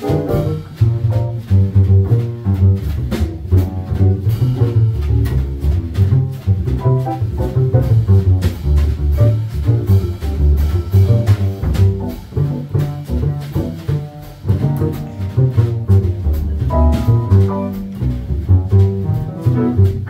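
Upright double bass played pizzicato in a jazz solo: a run of deep plucked notes, with a brief pause about fourteen seconds in.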